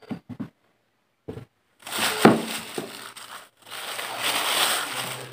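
Plastic bag crinkling and rustling as a clay cup is pulled out of it, with a few light taps at first and one sharp knock about two seconds in.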